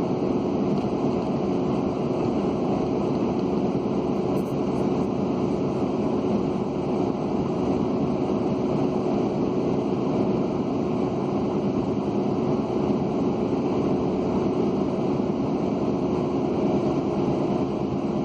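2005 Dodge Dakota pickup driving at steady speed, heard from inside the cab: steady tire and road noise with a constant drone, which the driver takes for a worn wheel bearing, though it could be just the tires.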